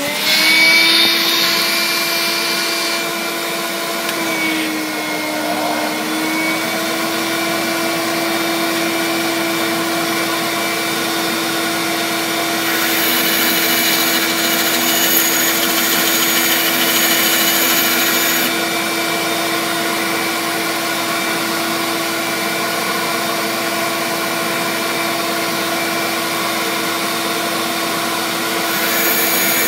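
Shop vacuum used as dust collection on a bandsaw: its motor finishes spinning up with a rising whine, then runs at a steady pitch while the bandsaw cuts APCP composite rocket-propellant grains. A brighter hiss comes in for several seconds in the middle and again near the end.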